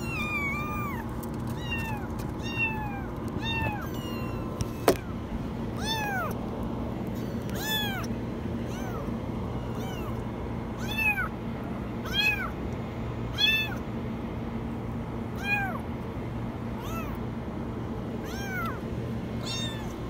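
Young kittens meowing repeatedly in very high-pitched cries that rise and fall, one every second or so, over a steady low hum. A single sharp click comes about five seconds in.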